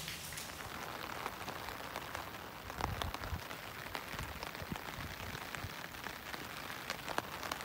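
Heavy downpour falling on a river: a steady hiss with many scattered sharp drop ticks.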